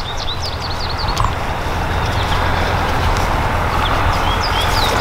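Songbirds chirping in many quick, high, short notes over a steady low rumbling noise.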